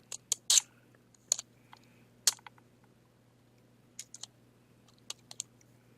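Hands working with tape and lithium-ion battery cells, making a run of irregular sharp clicks and crinkles. The loudest come in the first couple of seconds, with fainter ones later.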